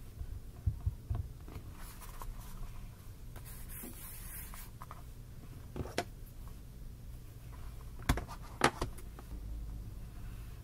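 Desk handling sounds: a few sharp taps and knocks, with a papery rustle as a page of a spiral notebook is turned. A low steady hum runs underneath.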